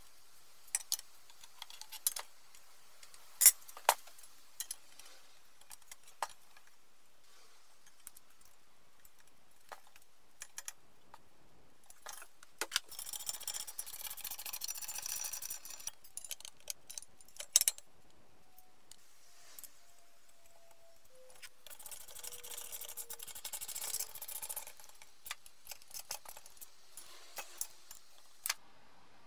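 Steel brake dust shield and strut hub parts clinking and knocking as they are handled and fitted together, with two spells of rapid ratchet clicking as the shield bolts are tightened.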